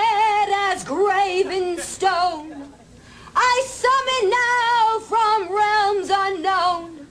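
A woman singing a summoning incantation in a high, quavering voice with heavy vibrato, in long held and sliding notes. The singing breaks off about two and a half seconds in and resumes about half a second later.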